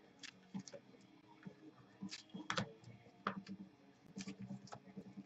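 Faint, irregular clicks and light rustles of trading cards and their packaging being handled.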